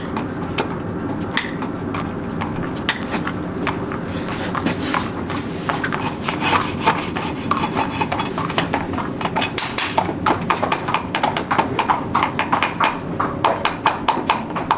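A quick series of sharp taps and knocks from work on a horse's hoof, growing faster and denser from about six seconds in, over a steady low hum.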